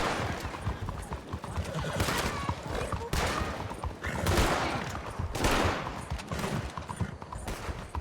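Video game gunfire: a running exchange of many shots, with heavier bursts every second or so.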